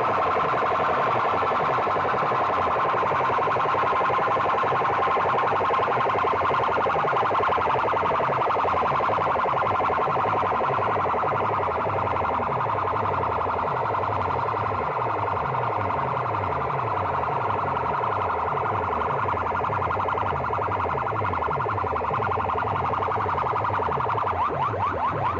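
Massed horn loudspeakers blasting a loud, siren-like electronic tone that holds around one pitch, with a fast, repeating falling pulse underneath. Near the end it turns into a quicker pulsing.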